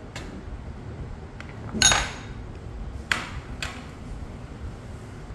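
Kitchenware clinking: four sharp knocks, the loudest about two seconds in with a brief metallic ring, over a steady low background noise.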